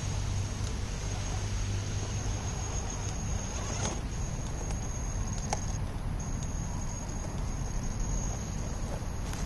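A 1/10-scale electric RC rock crawler creeping up a boulder: a steady high-pitched whine from its motor, which drops out briefly about six seconds in, with a few faint clicks of the tyres and chassis on the rock.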